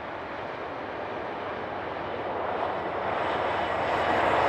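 A train approaching, its noise growing steadily louder.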